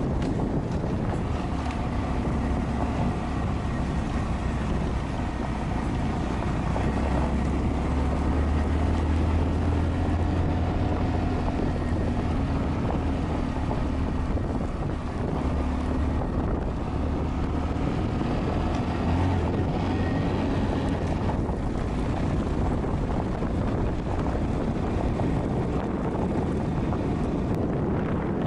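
Honda Monkey 125's single-cylinder four-stroke engine running steadily while riding, its note swelling a little through the middle, with wind buffeting the microphone.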